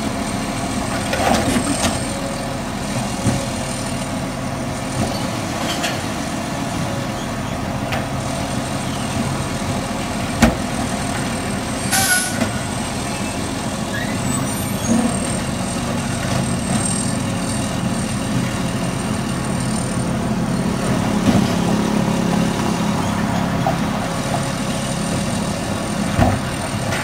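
Automated side-loader garbage truck running at idle, a steady low diesel drone. A short hiss of air comes about halfway through, and the engine grows slightly louder in the later part.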